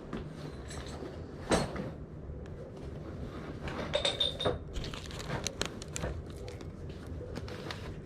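Scattered knocks and clatter of objects being handled and moved about, with one sharp knock about a second and a half in and a burst of clatter around the middle.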